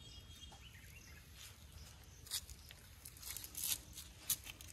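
Quiet outdoor rural ambience with faint bird and insect calls. In the second half come a few short, sharp rustles and clicks, the loudest a single click a little after four seconds in.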